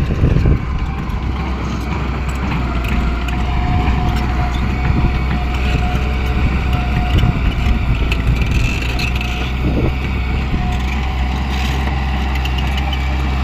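Diesel engine of a heavy construction machine running steadily under load. A thin, steady higher whine sounds over it for several seconds in the middle, with a few small knocks.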